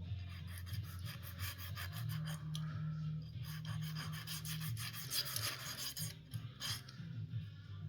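A file rasping on the edge of a thin steel hair clip in quick back-and-forth strokes, smoothing the edges down, with a short break a little before the end.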